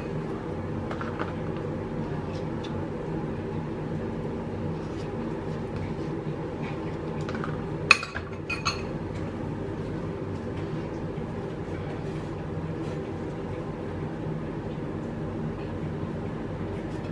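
Buttered bread frying in a pan, with faint scattered crackles over a steady low hum. Two sharp clinks come close together about eight seconds in.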